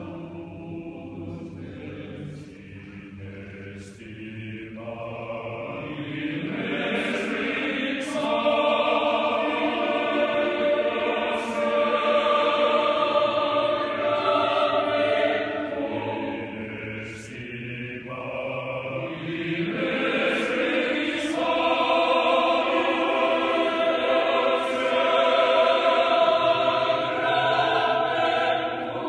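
Mixed choir of men's and women's voices singing in a church, holding sustained chords. The singing swells louder about six seconds in, eases off briefly about two-thirds of the way through, then swells again.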